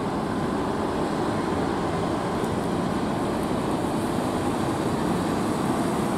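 Large diesel buses driving past at close range, their engines giving a steady low drone that grows a little louder just after the start.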